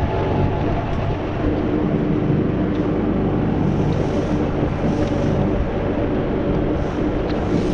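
Vehicle engine running steadily under way, with constant road and wind noise.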